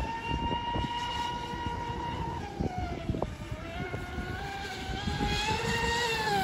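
32-inch Lizard deep-vee RC offshore boat running at speed, its motor a high whine that dips in pitch about three seconds in and climbs again toward the end.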